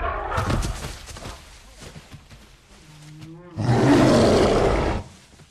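Albino silverback gorilla roaring: one loud, rough roar of about a second and a half, starting a little past halfway and cutting off sharply. It is a film sound effect of an aggressive threat display.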